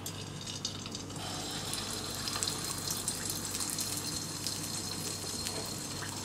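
Kandarappam batter poured into hot oil in a deep kadai, the oil sizzling and crackling as the batter fries. The sizzle builds about a second in and then carries on steadily.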